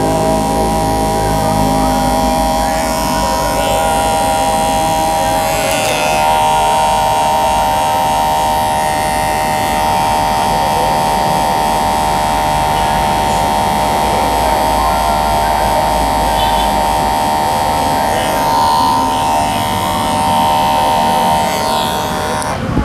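Electric hair clipper buzzing steadily as it cuts and fades short hair on the back of the neck, stopping right at the end.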